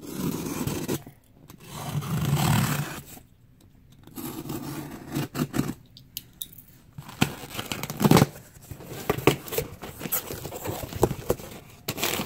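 A small utility knife slitting the packing tape on a cardboard box in several long scraping strokes, then the cardboard flaps being pulled open with rustling, scraping and many small clicks and taps.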